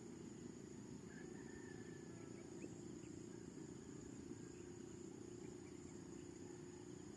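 Faint outdoor night-time-style ambience: a steady high-pitched insect drone, like crickets, over a low rumbling background noise.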